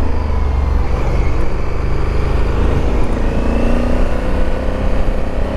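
Honda CRF1100L Africa Twin's parallel-twin engine running under way, its pitch drifting up and down slightly, under a heavy low rumble of wind noise on the microphone.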